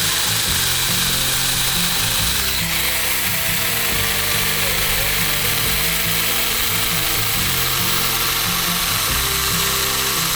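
Chainsaw running at speed as it cuts into a pumpkin, a steady hissing whine that gets brighter about two and a half seconds in, with background music underneath.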